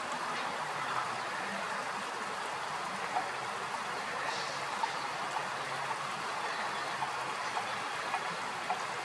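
Shallow stream running over stones: a steady rush of water with small plinks of water scattered through it.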